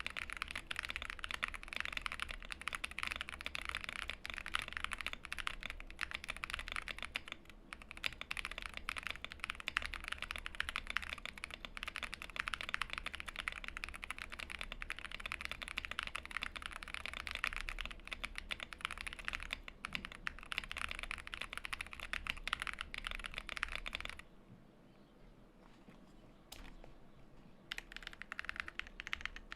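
Zoom87 mechanical keyboard typed on quickly and continuously, with stock Neapolitan Ice Cream switches on an aluminium plate, plate and switch foam, and a tape mod. About 24 seconds in, the typing stops for a few seconds with a single click in the pause, then starts again.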